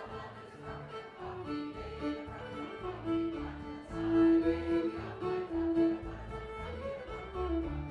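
Instrumental break: a fiddle bowing the melody in held notes over acoustic guitar accompaniment.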